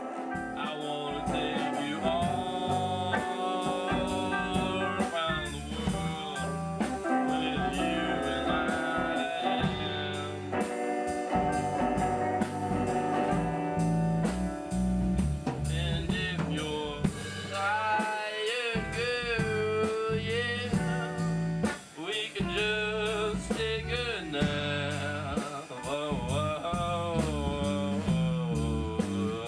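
Band music: a blues-rock song with a drum kit keeping a steady beat under a wavering, bending lead melody, with a brief drop-out about two-thirds of the way through.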